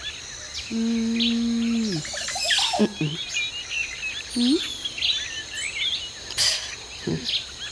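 Birds chirping and singing throughout, with a low, steady held tone lasting about a second and a half near the start, a short rising tone a little past the middle, and a few brief sharp noises.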